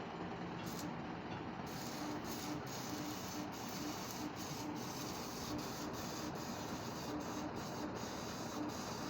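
Steady machinery noise with a faint regular pulse, a little over two beats a second, which sets in about two seconds in.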